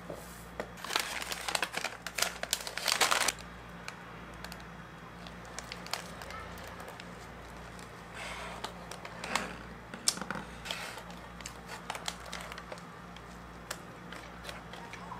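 Packaging crinkling as it is handled, loudest for about two seconds a second in, followed by scattered light clicks and taps, with a second short rustle around the middle.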